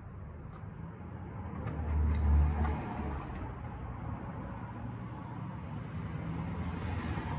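Beko WTK104121A washing machine partway through a wash cycle, its motor turning the drum with a steady low rumble. The rumble swells louder about two seconds in, with a few light clicks.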